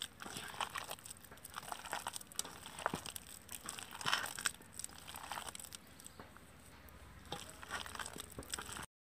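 Bare hand squeezing and mashing sliced ripe bananas in a steel bowl: irregular soft squishing and crackling of the fruit pulp.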